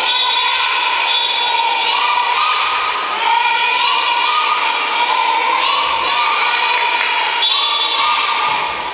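A group of young children shouting a team cheer in unison: several long drawn-out calls, each stepping up in pitch.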